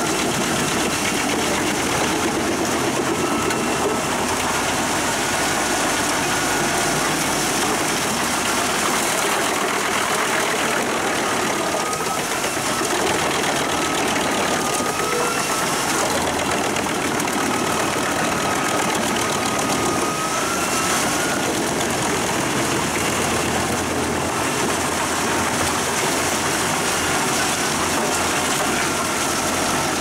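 Pezzolato PTH 1200/1000 drum wood chipper running at work off a 500 hp Claas Xerion 5000 tractor, chipping logs fed in by a crane grab. The loud, steady din of drum and tractor carries a faint high whine that wavers in pitch.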